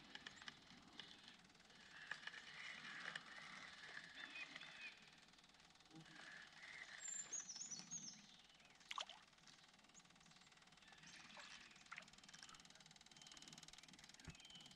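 Near silence: faint outdoor ambience with a few small clicks, the sharpest about nine seconds in, and a brief high falling twitter about seven seconds in.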